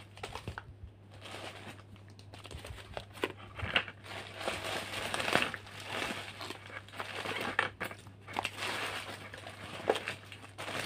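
Plastic bags and packaging rustling and crinkling as items are handled and rummaged through, irregularly with small crackles, over a steady low hum.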